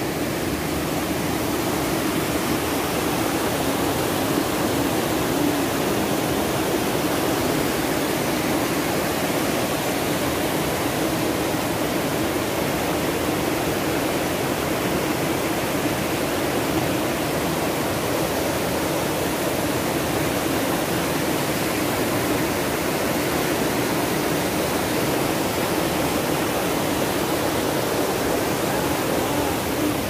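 Steady rushing of a rocky mountain stream, white water pouring over and between boulders in rapids.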